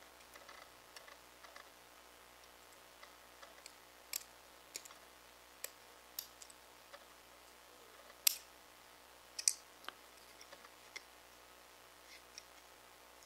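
Faint, irregular clicks and ticks of a hobby knife blade picking and scraping at protective paper stuck in the corners of a laser-cut acrylic gear. The loudest click comes about eight seconds in.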